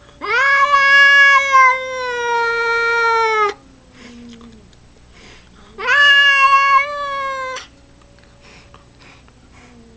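Two cats in a standoff across a window, caterwauling: two long, loud yowls, the first over three seconds and the second about two, with a fainter, lower drawn-out yowl sounding before, between and after them.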